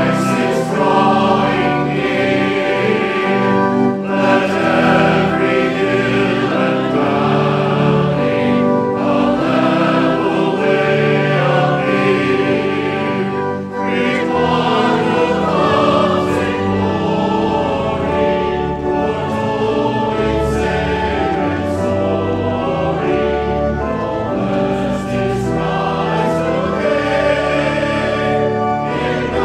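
A mixed church choir singing a hymn with organ accompaniment, the full choir holding long sustained chords under steady low bass notes.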